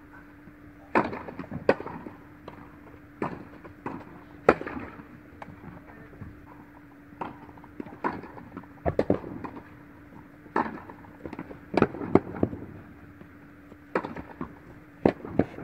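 Tennis ball being struck by rackets and bouncing on an indoor court: a dozen or so sharp, irregular pops, some in quick pairs, each with a short ring of hall echo, over a steady low hum.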